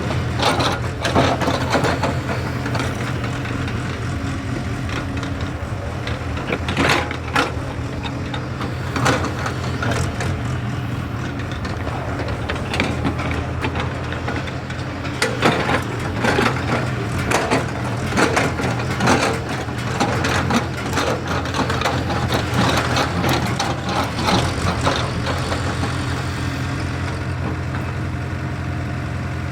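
JCB excavator's diesel engine running steadily, with scattered knocks, clanks and crunching noises from the machine at work.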